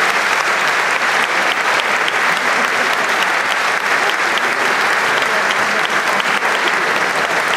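Audience applauding steadily: dense, even clapping that keeps going without a break.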